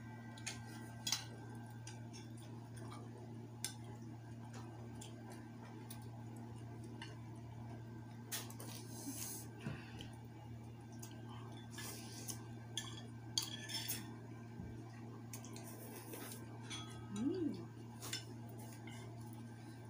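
Spoons and forks clinking and scraping against bowls as people eat noodles, with a few short slurps, over a steady low hum.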